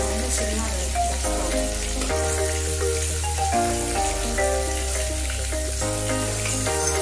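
Hot oil sizzling steadily in a kadai as pieces of green capsicum fry in it. Background music with a steady bass and changing chords plays over it.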